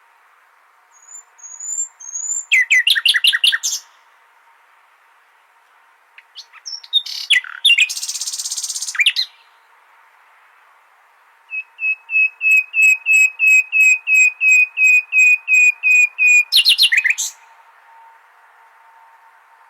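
Nightingale singing in separate phrases with pauses between them: a couple of quick trills early on, a harsh buzzy phrase about eight seconds in, then a long run of about three rapidly repeated notes a second.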